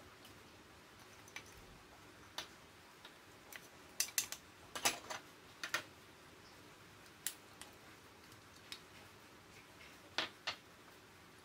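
Light clinks and taps of small dishes against a glass mixing bowl as chopped green onion, minced garlic and gochujang are tipped in. A cluster of quick taps comes about four to six seconds in, and another pair near ten seconds.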